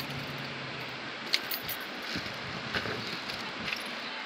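A few light clicks and clinks, spaced about a second apart, over a steady low background hiss: small hard objects being handled.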